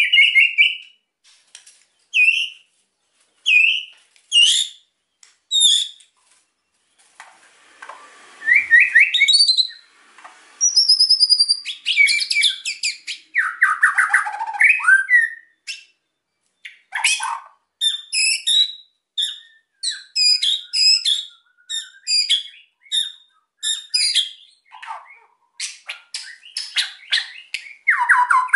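White-rumped shama (murai batu) singing at full intensity: a string of short whistled phrases and quick trills broken by dense, rapid rattling calls, with brief pauses between phrases.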